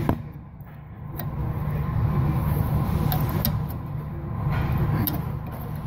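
Steady low machine hum of a car repair shop, with a few faint clicks and taps of hand work under the car.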